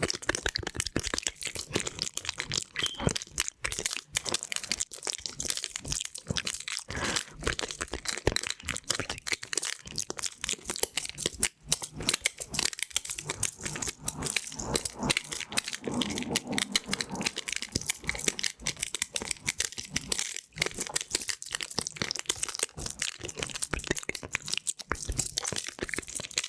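Pin-art toy's many small pins clicking and rattling as they are pushed and slide in their frame: a dense, continuous stream of tiny sharp clicks.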